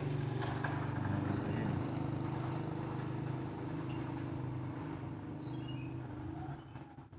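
An engine running steadily with a low hum, dying away near the end.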